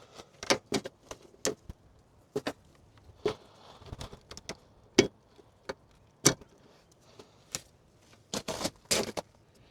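Irregular sharp clicks, taps and light rattles of hands working an LED headlight bulb into a car's headlight housing.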